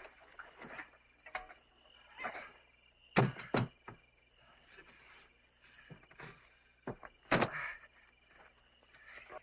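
Crickets chirping in a steady, evenly pulsing trill, broken by a few sharp knocks and scrapes: two just after three seconds and a louder pair around seven seconds in.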